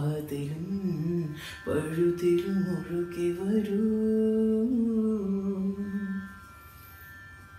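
A young man's voice singing a Malayalam film song solo, in two phrases: a short one ending about a second and a half in, then a long phrase of held notes that ends about six seconds in.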